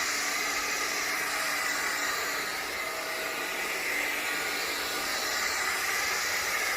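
Hoover ONEPWR FloorMate Jet cordless hard-floor cleaner running on eco mode, its suction motor and brush roll giving a steady, even whir as it washes a tile floor.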